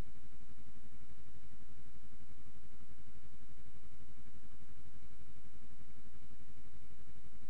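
Motorcycle engine idling steadily at a standstill, with an even, rapid pulse.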